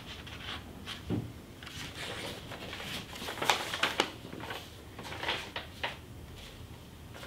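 Pages of a paperback book being leafed through: soft paper rustles, with a few sharper flicks about halfway through.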